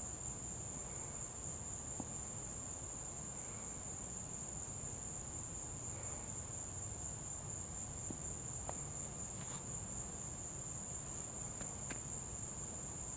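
Steady, unbroken high-pitched trilling of insects, crickets or similar, with a few faint ticks.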